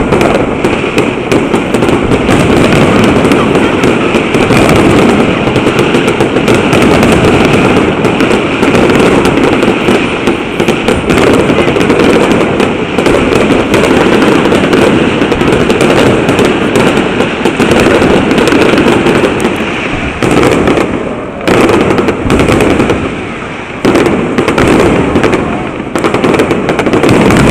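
A dense, continuous barrage of fireworks: rapid overlapping bangs and crackles, very loud throughout, easing briefly twice in the last third before picking up again.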